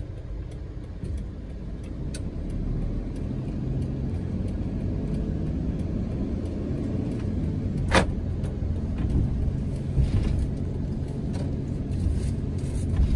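Campervan driving slowly, its engine and tyres making a steady low sound, with a sharp click about eight seconds in.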